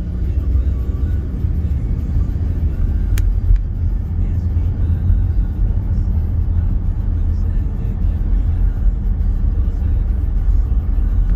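Steady low road and engine rumble heard inside a moving car's cabin, with one sharp click about three seconds in.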